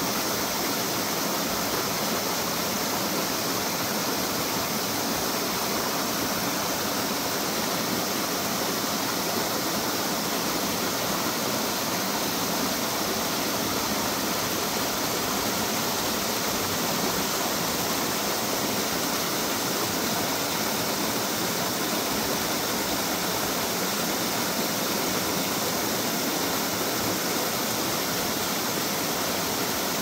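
Shallow mountain stream running over rocks, a small cascade pouring steadily into a pool.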